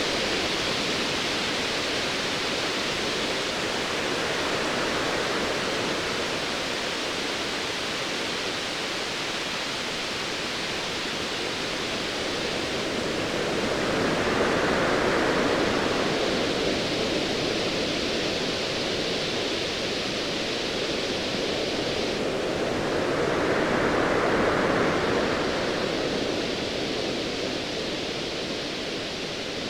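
Ocean waves washing in with a steady hiss, swelling louder twice, about halfway through and again near the end.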